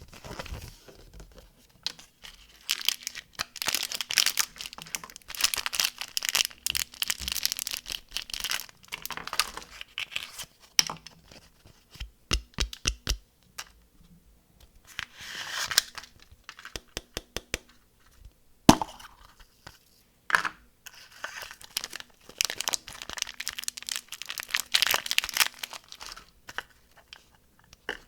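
Candy wrappers crinkling and tearing as they are unwrapped, in several long stretches with a quiet gap between them. A quick run of clicks comes about midway, and a single sharp snap follows a few seconds later.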